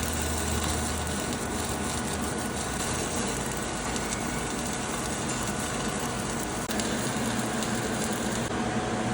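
Stick-welding arc burning a 7018 electrode, a steady crackle and sizzle from a small 110 V welding machine as a bead is laid.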